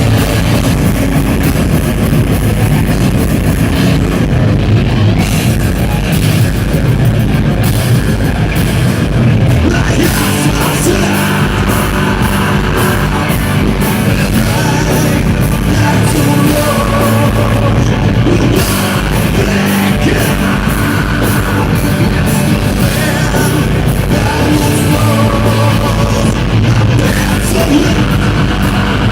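A live rock band playing loud, distorted heavy rock with electric guitars and drums, a singer coming in about a third of the way through.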